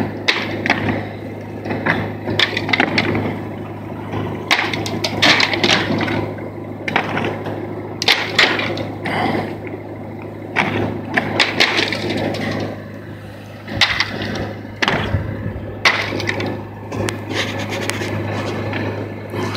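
Old roofing slates being pried off and broken up: irregular cracking, scraping and clattering of slate pieces, over a steady low hum.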